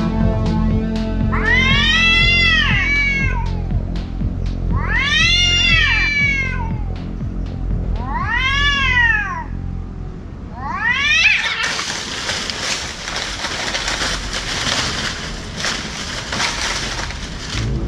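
Cats yowling at each other: long drawn calls that rise and fall in pitch, four of them about three seconds apart, over steady background music. About 11 s in the yowls give way to a harsh rustling noise, the cats scuffling in dry palm fronds.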